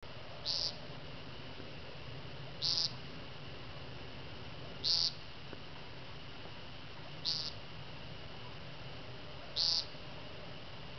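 American woodcock giving its nasal peent call on the ground during its spring courtship display: five short calls, a little over two seconds apart.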